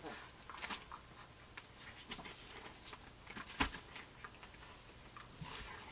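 Newspaper bedding rustling and scratching as a mother dog and her puppies shift about on it, with scattered small clicks and one sharp click about three and a half seconds in.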